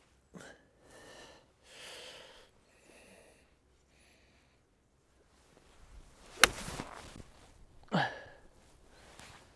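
A single golf iron shot: the club swishes down and strikes the ball off an artificial-turf hitting mat with one sharp crack, about six and a half seconds in. A short, loud pitched sound follows about a second and a half later.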